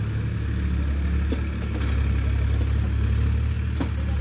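Farm tractor's diesel engine running steadily as it moves through mud with a rotavator on the back. Two short knocks sound over it, one about a second in and one near the end.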